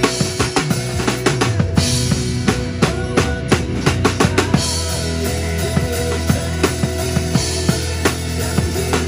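Acoustic drum kit played with sticks, bass drum, snare and cymbals in a steady groove, with a run of quick strokes around three seconds in, over backing music with sustained pitched instruments.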